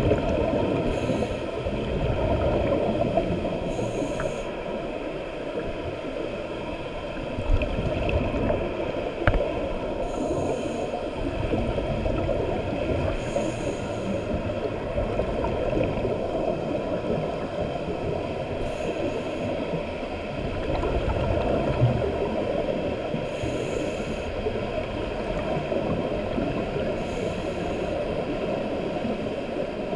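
Muffled underwater sound through an action camera's waterproof housing: a steady low rumble and gurgle of scuba divers' exhaled regulator bubbles, with a brief faint hiss every few seconds.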